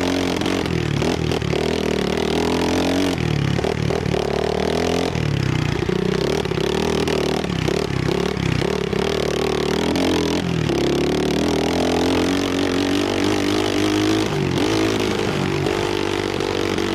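Trailmaster 125 pit bike's 125cc four-stroke single-cylinder engine being ridden hard, its pitch climbing and dropping again and again as the throttle opens and closes and the semi-automatic gearbox is shifted.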